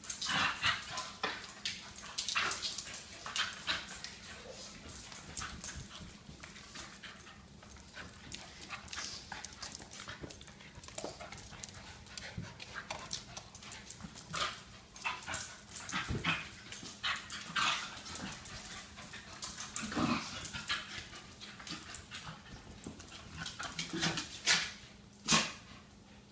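Two dogs play-wrestling on a hardwood floor: claws clicking and scrabbling on the wood, with occasional short vocal noises from the dogs.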